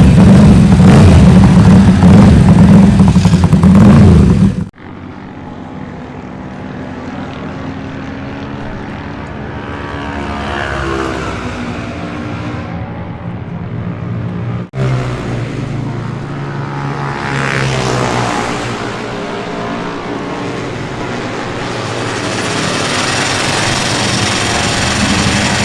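Classic racing motorcycle engines. A very loud, close engine runs for the first few seconds and then cuts off abruptly. Quieter engines follow, rising and falling in pitch as they rev, growing louder near the end.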